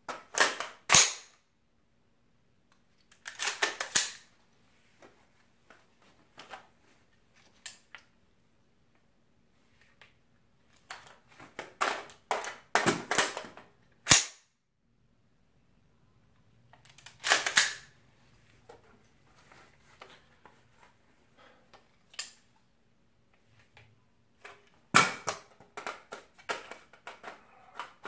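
Clusters of sharp metallic clacks and clicks from an AR-15 rifle being handled during magazine-change drills: magazines released and seated, the rifle's action clacking. The clusters come every few seconds, with quiet gaps between.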